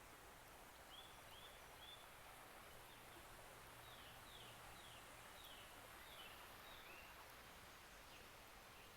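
Faint outdoor ambience: a bird calling in short chirps, three arched notes followed a few seconds later by a run of quick falling notes, over a low steady hiss.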